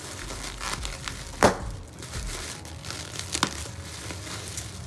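A cardboard shipping box being worked open by hand: crinkling and tearing of packaging, with a sharp snap about a second and a half in and a lighter click later.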